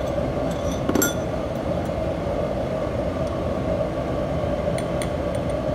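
A metal spoon clinking against a small ceramic bowl as a spice mixture is stirred, a few sharp clinks about a second in and again near the end, over a steady background hum.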